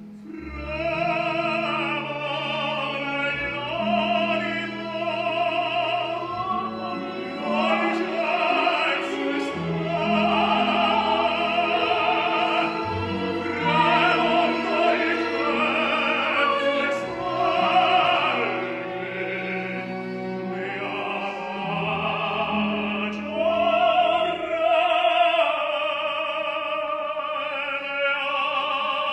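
A tenor and a soprano singing an operatic duet with orchestral accompaniment, their long held notes wavering with strong vibrato.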